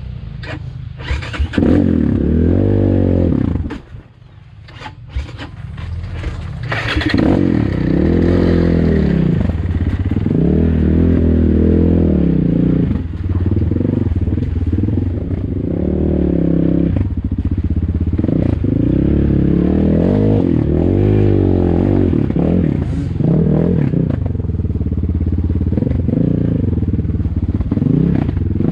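ATAKI DR 250 enduro motorcycle's 172FMM single-cylinder four-stroke engine, which has no balance shaft, revving up and down over and over under throttle on rough ground. Its sound drops away sharply about four seconds in, then comes back loud from about seven seconds on.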